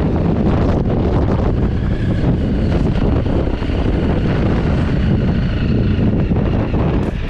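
Honda CRF250 Rally's single-cylinder engine running steadily under way over loose gravel, with heavy wind noise on the microphone.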